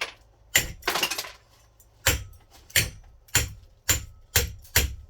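A ceiling fan being struck repeatedly: about eight sharp knocks with a faint metallic ring, roughly one every half second, with a short rattle of loose parts after the second blow.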